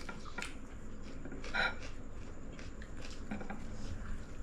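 Eating sounds at a table: quiet chewing with a few light clicks, and a short louder crunch or rustle about a second and a half in.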